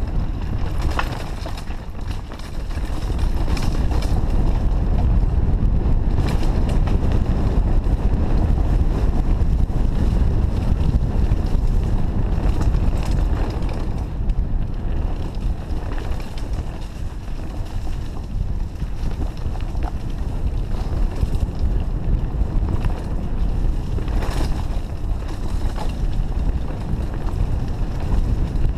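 Wind buffeting the microphone and the tyres of a Trek Fuel EX 8 full-suspension mountain bike rumbling over a dirt and stony trail while riding fast downhill, with scattered knocks and rattles from the bike.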